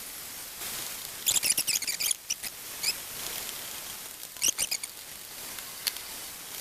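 Chicken hearts cooking in a frying pan: a steady sizzle with two short runs of rapid crackling pops, about a second in and again past four seconds, as the water cooks off and the hearts start to fry in their rendered fat.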